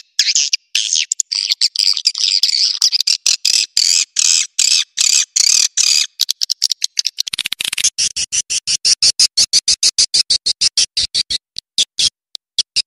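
Recorded calls of edible-nest swiftlets: rapid, high chattering twitters and clicks, played as a lure call to draw swiftlets in to roost. About halfway through it changes to an even, rapid train of sharp chirps.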